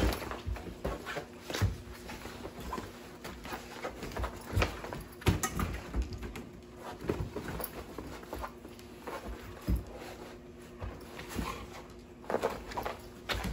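Husky and shepherd-Labrador mix puppies play-fighting on a fabric tent: irregular scuffling, thumps and paw scrabbling, with louder flurries near the start, around five seconds in and near the end.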